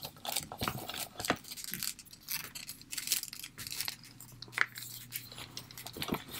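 Handling noise as a thin fabric desert-camouflage jacket is worked onto a 12-inch plastic doll: soft cloth rustling with scattered small plastic clicks and taps.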